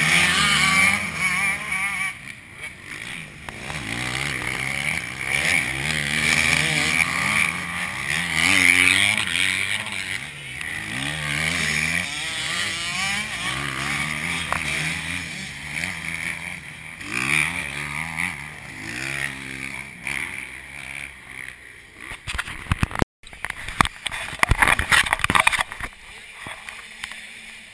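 Several motocross dirt bike engines racing past, revving up and falling back again and again as the riders work through the corners. Near the end the sound drops out briefly and gives way to a few seconds of rough, crackling noise bursts.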